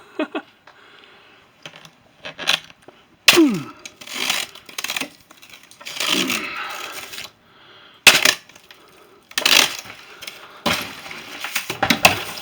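A thick sheet of roof-edge ice being pushed on with a broom and breaking: irregular sharp cracks, knocks and crunches as the ice gives way in pieces.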